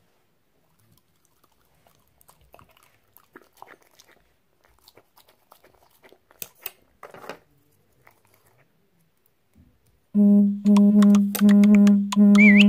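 French bulldog chewing banana and smacking its lips: quiet wet clicks and crackles. About ten seconds in, loud music with a steady low note and a pulsing beat starts suddenly and drowns everything else.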